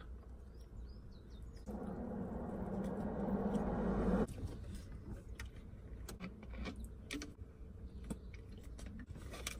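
Quiet eating and drinking sounds: a bite and chewing of a pizza slice, then sips from a plastic soda bottle, with small clicks. A louder steady noise swells for about two and a half seconds and stops abruptly about four seconds in.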